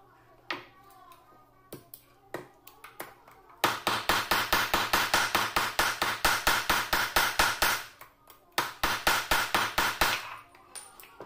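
Hammer striking a silver strip on a steel anvil block: a few single blows, then fast, even hammering at about six blows a second for around four seconds, a short pause, and another run of blows lasting about a second and a half.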